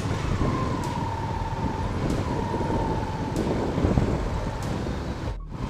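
Motorcycle riding through city traffic: steady engine and road noise with wind buffeting the microphone. A faint, thin, steady tone comes and goes during the first few seconds, and the sound cuts out for a moment near the end.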